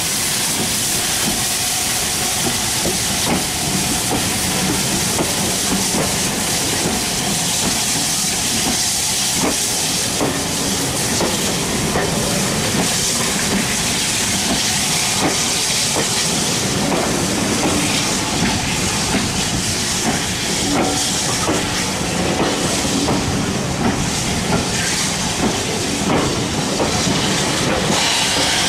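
Steam-hauled passenger train behind Bulleid Battle of Britain class Pacific No. 34081 pulling away past the listener. Its carriages' wheels click over the rail joints over a steady hiss of steam.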